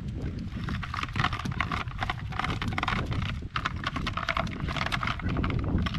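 Irregular knocking and clicking as a monofilament cast net is gathered up over a plastic bucket on a wooden dock, its lead line clattering, while freshly caught fish flop on the boards.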